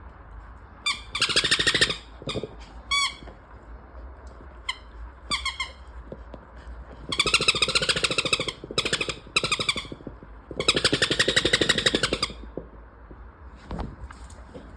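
A dog chewing a squeaky toy, making it squeak over and over in quick runs. The three longest runs last one to two seconds each, with single short squeaks between them.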